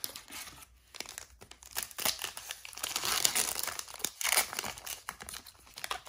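A foil trading card pack wrapper torn open and crinkled by hand: dense crinkling and tearing, loudest about three to four and a half seconds in.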